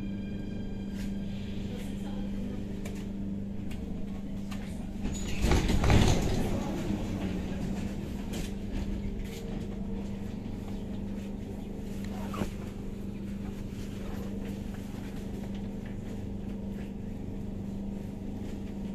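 Inside an Athens Metro train car as it pulls along a station platform and stops: a steady running hum with a constant low tone. A loud rush of noise swells and fades about five to seven seconds in, and a single short click comes later.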